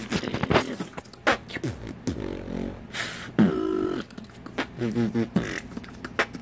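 Mouth beatboxing featuring the fart bass, a buzzing lip-bass sound with the lips held tight, sounded several times among sharp percussive kick and snare hits, picked up by a phone's built-in mic.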